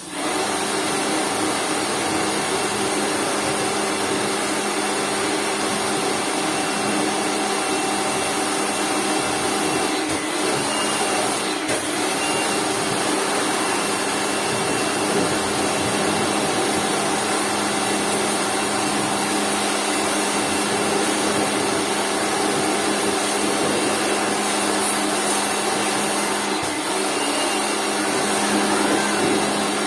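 Lakoni Laguna 70 electric pressure washer running steadily, its motor humming under a dense spray hiss, starting abruptly.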